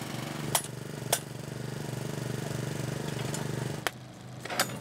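A thermite rail-weld shearing machine running steadily on its engine-driven hydraulic drive, with two sharp metallic cracks in the first second or so as the excess weld metal is sheared off the rail. The engine sound cuts off near the end with a crack, followed by light metal clinks.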